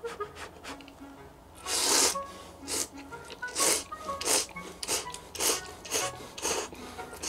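A person slurping thick ramen noodles: one long slurp about two seconds in, then a run of about eight shorter slurps, roughly two a second.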